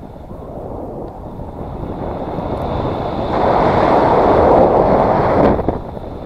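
Wind rushing over a GoPro's microphone in paragliding flight: a steady roar of air that swells louder about halfway through, then drops off suddenly near the end.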